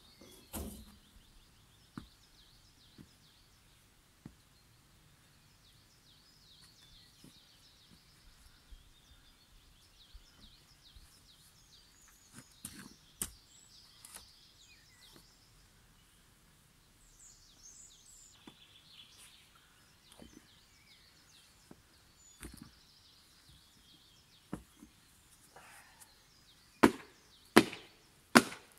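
Faint birds chirping with scattered small knocks, then three sharp knocks a little under a second apart near the end as a pair of work boots are knocked.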